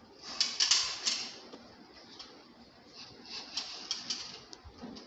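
Screwdriver tightening screws into an air-conditioner casing, heard as quick runs of sharp clicks. One run comes about half a second in and another from about three seconds in.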